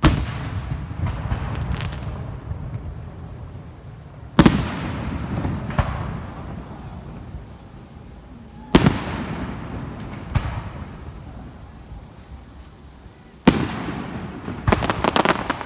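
Aerial firework shells bursting: four loud bangs about every four to five seconds, each followed by a long rolling rumble, with fainter reports in between and a rapid run of crackling pops near the end.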